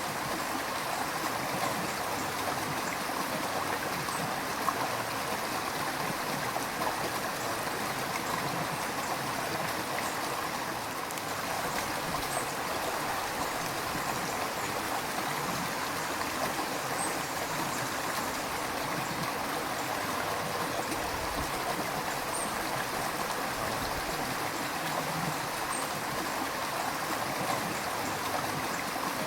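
River water flowing over rocks, a steady rushing and gurgling with small splashes here and there.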